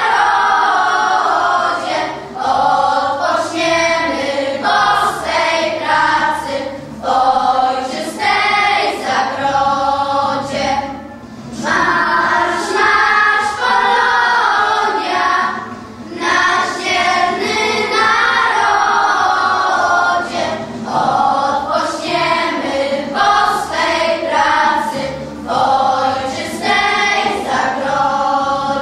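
Children's choir singing a song together, pausing briefly twice between phrases.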